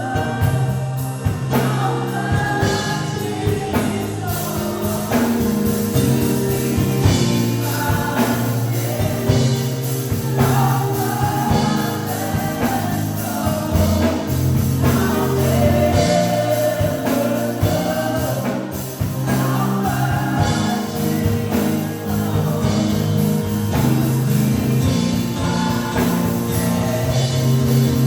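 Live gospel worship music: singers over a band with sustained bass notes.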